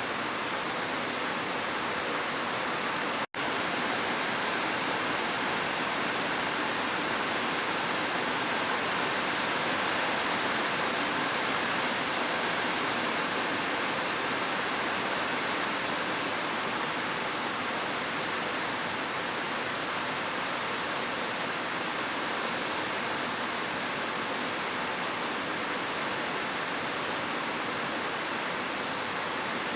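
Heavy rain falling as a steady, even hiss, cutting out for an instant about three seconds in.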